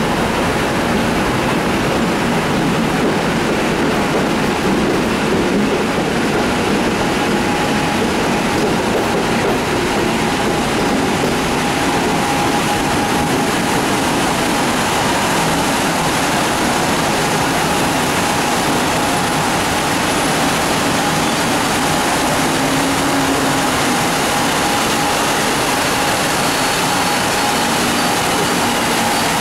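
EP09 electric locomotive hauling its train slowly into the platform: a steady, even rumbling noise, with a faint thin whine setting in about seven seconds in.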